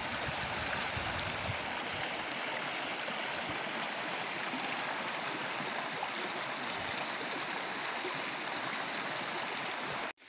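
Muddy floodwater from an overflowing creek rushing hard through a field, a steady strong flow. The sound breaks off abruptly near the end.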